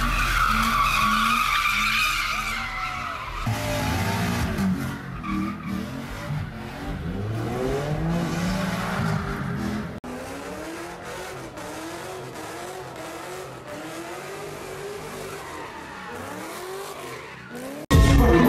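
A car doing burnouts or donuts on asphalt: tires squealing for the first few seconds, then the engine revving up and down repeatedly. Near the end it cuts abruptly to loud live music.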